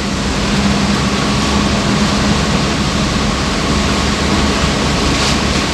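Steady, dense rush of heavy rain and road noise from a vehicle moving through a downpour, with a steady engine hum underneath.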